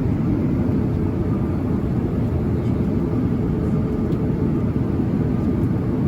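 Steady low rumble of a vehicle under way, starting abruptly and holding level throughout.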